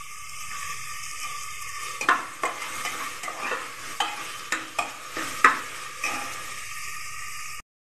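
Tomatoes and spices sizzling steadily in a pressure cooker pot. From about two seconds in, a metal spoon stirs and scrapes against the pot in a run of quick strokes. The sound cuts off suddenly near the end.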